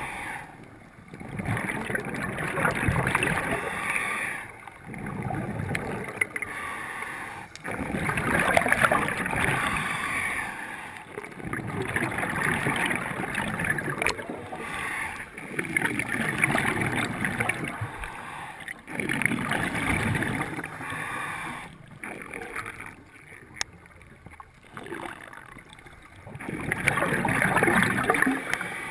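A scuba diver breathing through a regulator underwater: surges of bubbling, gurgling exhaust about once every four seconds, with quieter gaps between breaths.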